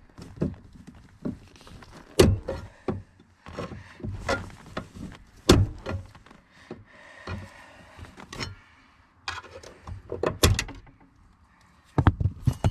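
Screwdriver prying at the spring on a Chevy Tahoe's door hinge: irregular sharp metal clicks and knocks, the loudest about two, five and a half, and ten seconds in.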